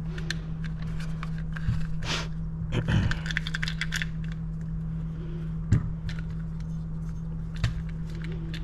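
Small clicks, taps and scrapes of a pistol grip being worked onto an AR-15 lower receiver and lined up over the selector detent spring, with a sharp click just before the six-second mark. A steady low hum runs underneath.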